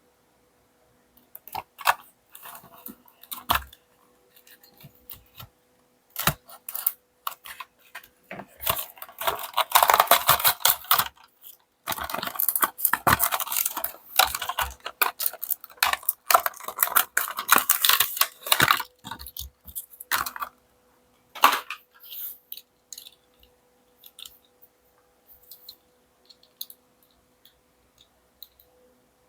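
Hands opening and handling the packaging of a 1/64-scale diecast toy car: scattered clicks and taps, then a long stretch of dense rustling and crinkling in the middle, then a few more light clicks. A faint steady hum runs underneath.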